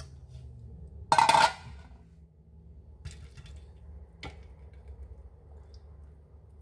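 A brief clatter of hard kitchenware about a second in, as a glass blender jar is handled over a metal bundt pan, then two light taps, over a low steady hum.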